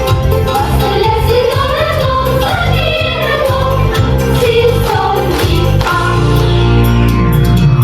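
Song from a stage musical: singing over a musical accompaniment with a regular beat. About six seconds in, the accompaniment changes to long held low notes.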